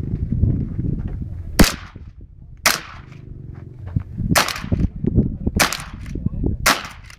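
Shotgun firing five shots, spaced about one to one and a half seconds apart, each a sharp crack with a short tail, over a low rumbling noise between shots.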